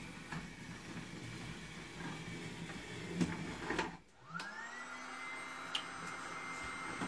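Electric motor of a Fleischmann H0 model locomotive running on the track with a few clicks, cutting out about four seconds in, then whining up in pitch as it starts again and settling into a steady hum.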